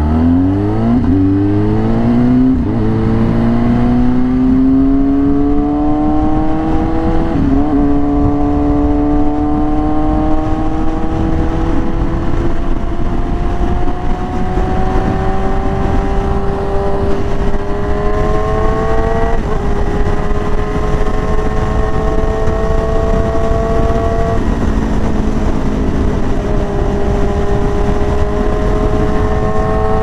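Yamaha R6 inline-four through an SC Project exhaust, pulling away from low revs and accelerating up through the gears. Four quick upshifts break the note, and in each gear the pitch climbs slowly.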